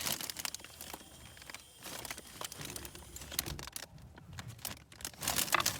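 Handling noise from plumbing work: rustling with scattered light clicks and knocks, busiest near the end.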